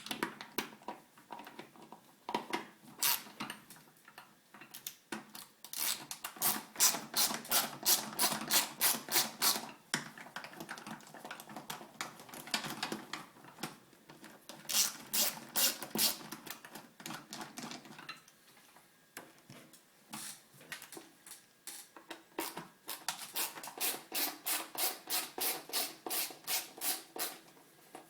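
A hand screwdriver ratcheting as it backs bolts out of a vacuum cleaner's casing. Several runs of quick, even clicks come at about four a second, with short pauses between them.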